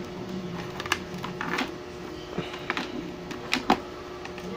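Handling noise from a motorcycle helmet and its strapped-on Telesin chin mount: irregular plastic clicks, knocks and rustling as hands turn the helmet over, the sharpest two clicks coming close together about three and a half seconds in, over a steady low hum.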